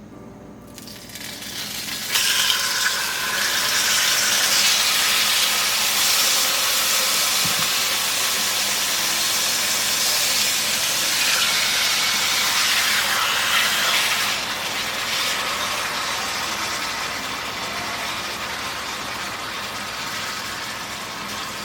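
Whole steaks sizzling loudly in a hot grill pan. The sizzle builds quickly, jumps up about two seconds in, and eases down a little near the end.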